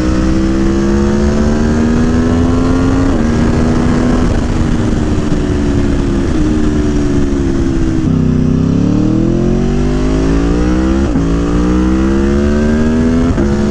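Aprilia Tuono V4 1100's 65-degree V4 engine, with a Gabro Stage 3 airbox and ECU flash, pulling hard through the gears under full acceleration. The pitch climbs, dips briefly at quick-shifter upshifts, drops about eight seconds in, then climbs steadily again through two more upshifts.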